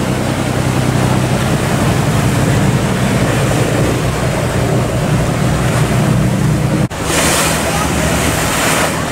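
Fishing boats' diesel engines running with a steady low hum under the rush of waves and wind noise. About seven seconds in, the sound cuts abruptly to another take with more wind and spray hiss over the engine hum.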